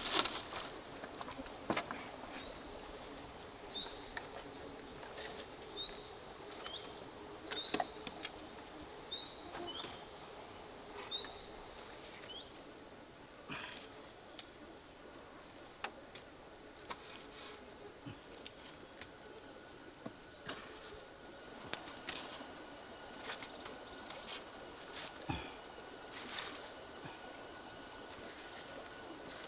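Forest ambience of insects: a run of short repeated chirps, then a steady high-pitched insect drone that sets in about twelve seconds in and holds. Scattered clicks and knocks of sticks and bamboo being handled at the fire.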